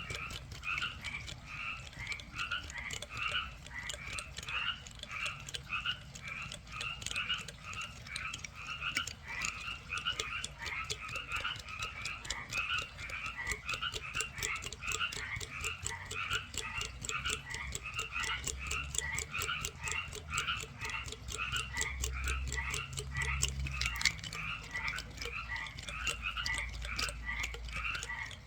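A steady chorus of animal calls: short chirps repeated several times a second, overlapping, with a fast clicking over them.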